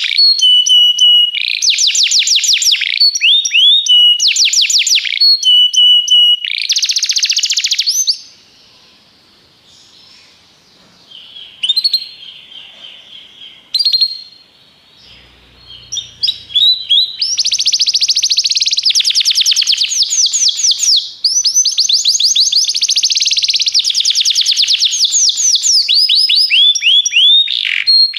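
Domestic canary (Belgian canary) singing: fast rolling trills of rapid falling notes alternating with held whistled tones. About a third of the way in it falls mostly quiet for several seconds, apart from a few short chirps, then resumes with a long unbroken run of trills.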